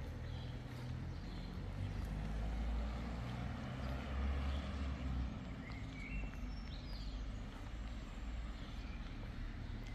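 Outdoor street ambience: a steady low rumble, with a few faint high chirps a little after halfway.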